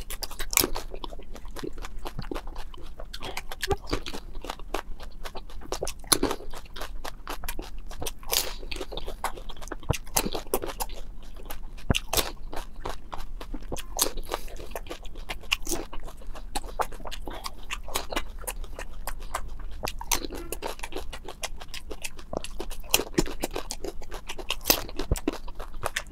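Close-miked crunching and chewing of pani puri (golgappa): crisp hollow puris filled with spiced water bitten and chewed, a steady run of sharp, irregular crunches.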